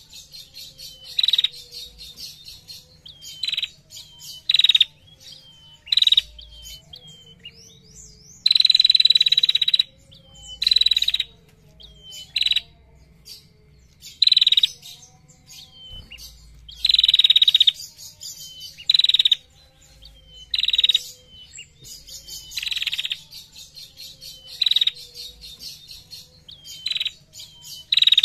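Female prenjak calling in rapid, high-pitched trills (the 'ngetir' call), short bursts repeated every second or two, with two longer trills of over a second, about a third of the way in and past the middle.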